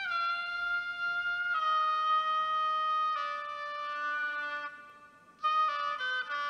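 A solo woodwind plays a slow melody of long held notes that step downward. It fades briefly just before five seconds in, then plays a quick run of short notes near the end.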